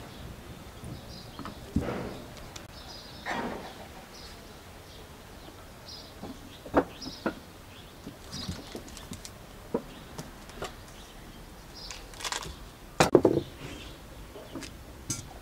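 Irregular knocks and clatters, a dozen or so, the loudest a cluster about thirteen seconds in, over faint high chirping.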